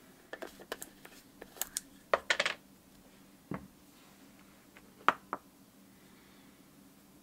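Light clicks and clinks of small hard parts handled on a wooden workbench: a carved wooden lure body set with steel ball weights is turned in the hands and laid down. They come in a quick cluster over the first two and a half seconds, followed by a single duller knock and then two sharp taps about five seconds in.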